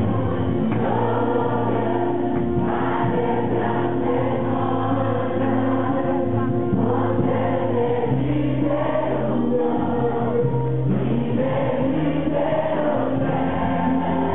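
Background music: a choir singing over held low notes.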